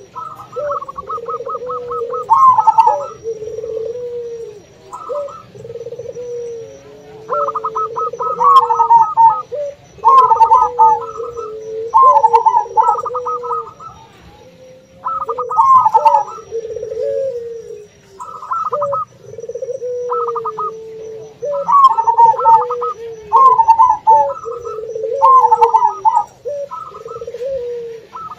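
Zebra doves (perkutut) singing their rapid, stuttering coo phrases over and over. Underneath runs the lower, more drawn-out cooing of a puter dove.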